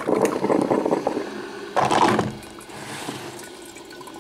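Drip coffee maker brewing: irregular gurgling and sputtering as the heated water is pushed up through the tube, with a strong surge just under two seconds in.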